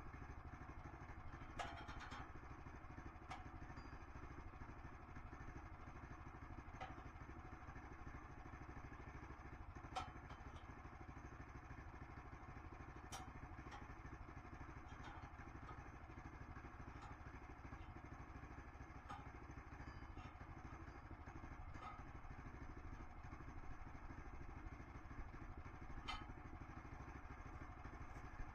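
A small engine running steadily at low level, with a few sharp clicks and knocks scattered through.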